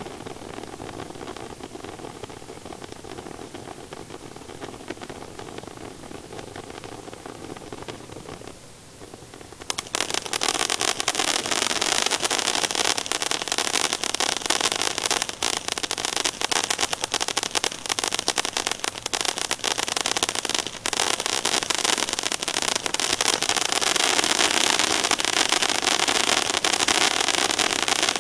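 Phantom Mask Fusion firework fountain burning: a steady rushing spray of sparks. About ten seconds in, it switches suddenly to a much louder, dense crackling that goes on throughout.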